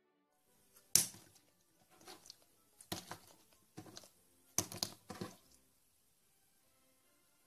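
Clear orange slime squeezed and stretched by hand, giving a string of sharp wet clicks and pops. The loudest comes about a second in and the rest come in a cluster over the next four seconds.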